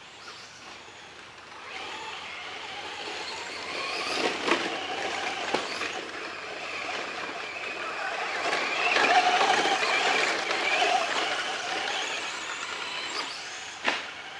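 Radio-controlled Traxxas Slash short-course truck driving, its motor whining and wavering in pitch as it speeds up and slows. It grows louder toward the middle and fades near the end, with a few sharp knocks, the loudest one just before the end.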